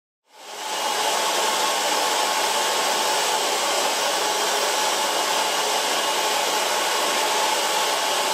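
Handheld hair dryer blowing steadily while long, wet hair is blow-dried. It comes in quickly about a third of a second in, after silence.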